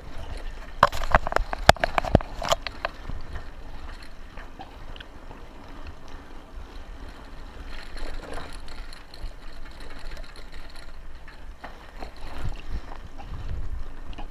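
Buffalo Charger bicycle rolling over a rough dirt track: tyres on dirt and the bike rattling over bumps, with a cluster of sharp knocks about one to two and a half seconds in. Wind rumbles on a chest-mounted camera's microphone.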